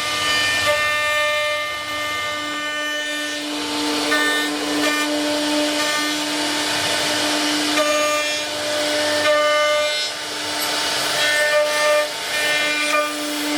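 A machine tool cutting: a steady whining tone with higher overtones that drop in and out as the load changes, over a rough rasping cutting noise, typical of a CNC spindle working material.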